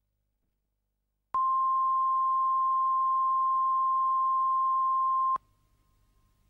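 Broadcast videotape line-up tone accompanying the RTÉ countdown clock: one steady, high, pure beep that starts about a second in, holds for about four seconds and cuts off suddenly.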